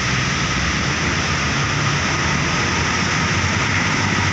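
Heavy road traffic passing close: a steady roar of engines and tyres with a low engine drone underneath.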